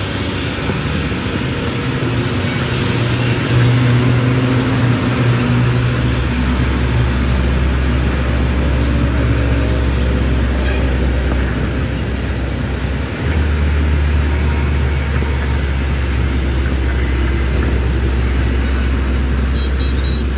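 Oil tanker truck's engine running under way with tyre and road noise, heard from inside the cab. The engine note drops briefly about thirteen seconds in, then picks up again.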